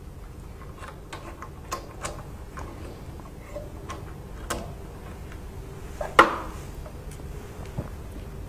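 Scattered light clicks and taps of metal parts and screws being handled while a sublimation press's vacuum pump is swapped out, with one louder knock about six seconds in.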